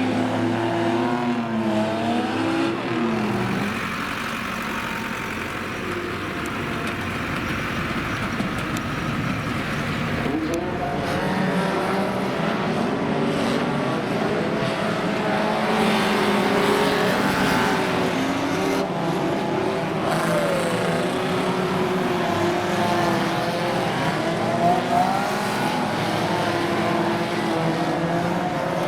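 Several banger racing cars' engines running and revving together, their pitches rising and falling as they race around the track.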